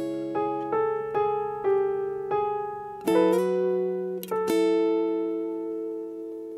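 Two acoustic guitars, one nylon-string and one steel-string, play a slow melody in single plucked notes. About three seconds in comes a chord, and at four and a half seconds another, which is left to ring and die away.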